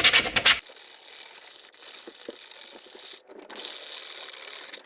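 Hand sanding of a 3D-printed plastic mask with 220-grit sandpaper: quick, even rubbing strokes that stop about half a second in. Then a faint scratchy hiss of the paper and mask being handled, with a few light clicks.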